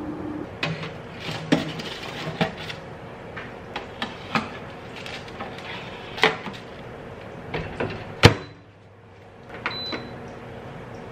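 Clicks and clatter of a rack and tray being handled inside an oven-style air fryer, then its door shutting with a sharp clack. A short electronic beep follows as the air fryer is set.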